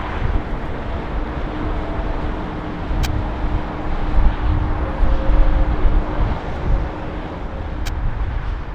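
Boeing 767-300ER airliner's jet engines rumbling as it touches down and rolls out on a wet runway, swelling about four seconds in. Two sharp clicks, about three and eight seconds in.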